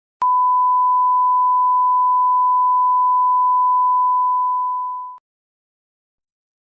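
A steady, pure 1 kHz reference tone of the kind recorded at the head of a video tape, starting with a click, held for about five seconds, dipping slightly in level and then cutting off.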